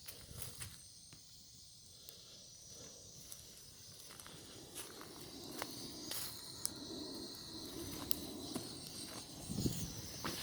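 Wood fire crackling: scattered sharp pops and ticks over a steady hiss, with a soft thump near the end.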